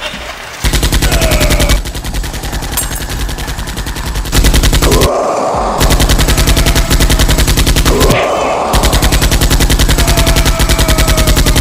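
Automatic-gunfire sound effect: long bursts of rapid machine-gun shots dubbed over Nerf blasters firing, with a brief rushing noise twice between bursts.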